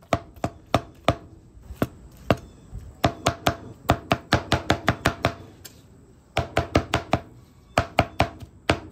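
Meat cleaver chopping smoked chicken on a cutting board: sharp knocks of the blade hitting the board in quick runs of about four a second. There is a short pause a little past the middle.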